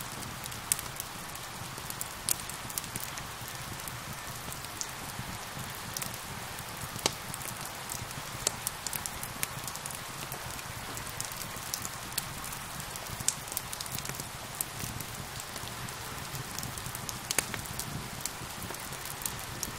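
Steady rain mixed with a crackling wood fire, with sharp irregular pops and crackles over an even hiss of rain.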